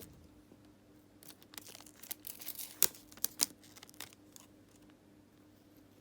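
Adhesive tape being handled and cut with scissors: a run of crinkling and tearing crackles with a few sharp clicks, the sharpest about three seconds in.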